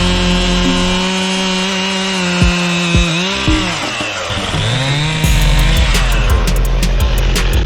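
Stihl two-stroke chainsaw running at steady high revs while cutting wood, the revs dropping and picking back up about three seconds in. About five seconds in, background music with a steady beat takes over.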